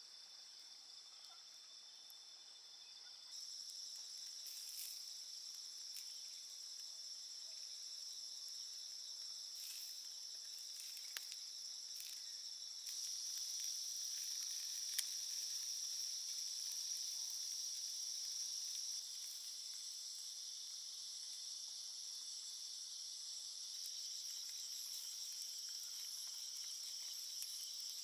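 Steady high-pitched chorus of insects chirring without pause, stepping louder about three seconds in and again near the middle, with a few faint clicks.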